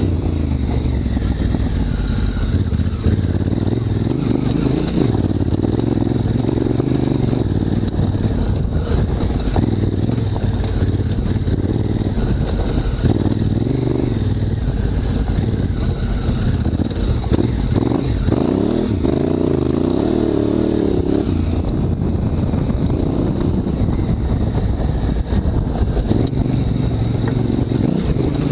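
Honda Africa Twin CRF1000L's parallel-twin engine running under way, its pitch rising and falling with the throttle.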